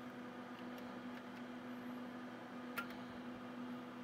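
Steady electrical hum from running bench test instruments, with one sharp click about three seconds in.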